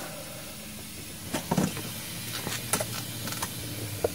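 Scattered light metallic clicks and knocks as a brake caliper is handled and hooked onto a coat-hanger wire, starting about a second in, over a steady low hiss.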